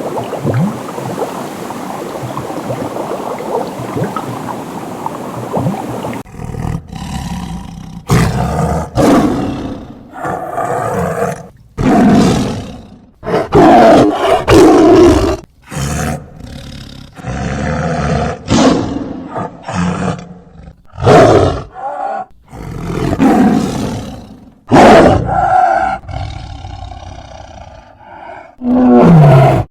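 Several seconds of steady, dense noise, then a run of loud, harsh animal calls, each about a second long with short gaps between them.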